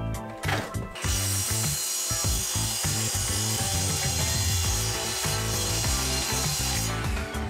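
Sliding compound miter saw running and cutting through a wooden board, starting about a second in and stopping shortly before the end, with background music underneath.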